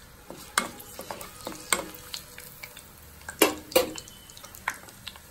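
Whole spices and bay leaves frying in hot oil and ghee in a kadai, stirred with a spatula: irregular clicks and scrapes against the pan over a soft sizzle, the two loudest knocks a little past halfway.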